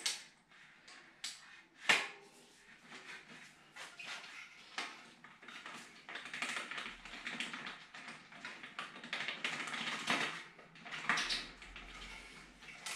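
Hands and tools working at a mountain bike's front wheel and brake: irregular clicks and taps with a sharp knock about two seconds in, then a few seconds of scraping and rustling.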